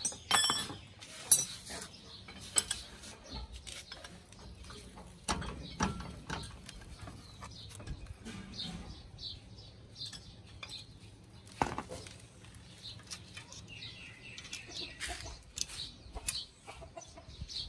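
Scattered metal clinks and knocks of hand tools and parts on a Mahindra Bolero 4x4's exposed front wheel hub, the sharpest about a second in. Birds chirp in the background.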